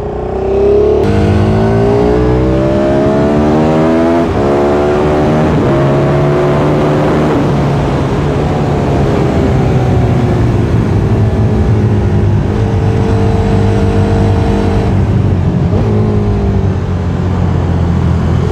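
KTM RC8's V-twin engine from an onboard camera, opening up about a second in and climbing in pitch through the gears, with a shift about four seconds in. It then falls in pitch as the throttle is rolled off, and settles into steadier, lower part-throttle notes.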